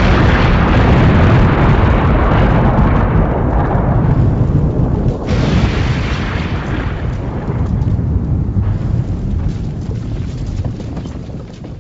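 A loud, deep rumble that slowly dies away, with a fresh swell about five seconds in, fading near the end.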